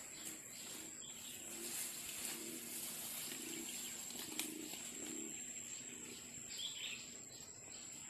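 Forest ambience: a steady high-pitched insect drone with a few faint bird calls over it.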